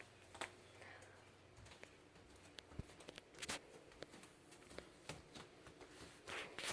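Faint scattered clicks and light rustling of something being handled, with a low hum for the first second and a half; the loudest click comes about three and a half seconds in, and a short rustle comes near the end.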